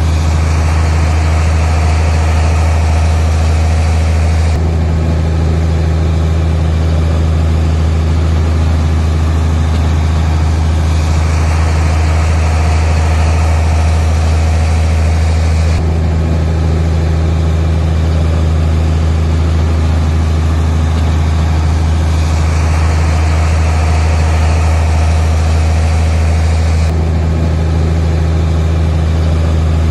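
A heavy diesel engine of earthmoving machinery runs steadily with a deep hum. The sound changes abruptly about every eleven seconds.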